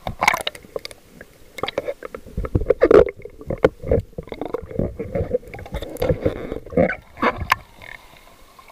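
Water sloshing, splashing and gurgling against an action camera held at the water's surface, in irregular bursts with sharp cracks. Near the end the camera goes under and the sound turns quieter and muffled.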